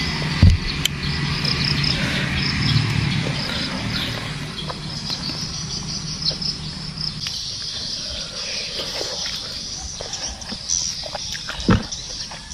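Insects chirping steadily in the background while juicy Malay apple flesh is torn apart and bitten close to the microphone, with a few sharp clicks and knocks, the loudest about half a second in and another near the end. A low hum fades out about halfway.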